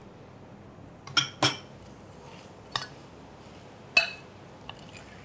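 Metal spoon clinking against a glass mixing bowl while stirring mashed potato mixture: a few sharp, ringing clinks at irregular intervals.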